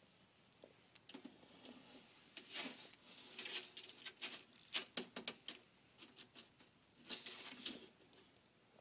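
Lace monitor eating a piece of food from the hand: wet clicking and smacking of its jaws in several clusters, densest in the middle and again near the end.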